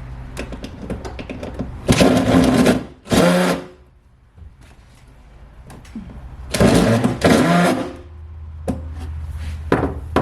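Cordless drill running in short bursts, two around two seconds in and two more past the middle, as screws are backed out of the wall paneling.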